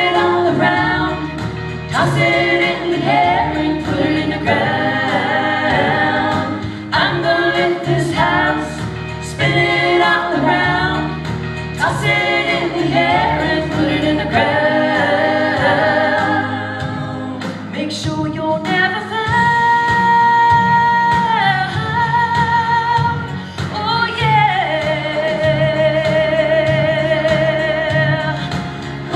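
Three women singing a country-pop song live in close harmony, with long held chords in the last third.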